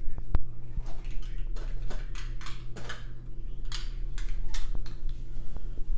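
Small objects, such as metal craft tins, being rummaged through and handled, with a run of rustles and light clinks and clicks over a steady low electrical hum.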